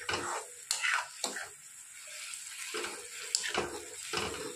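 A steel spoon stirring a wet, simmering yam and tomato curry in a kadhai: several separate scraping strokes against the pan, about a second apart, over a faint sizzle. A little water has just been added to the curry to boil down.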